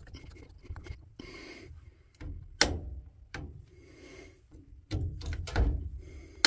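Handling clicks and knocks of work on a plastic wall outlet. The sharpest click comes about two and a half seconds in. Near the end a power cord's plug is pushed into the receptacle, with a cluster of knocks and a final click.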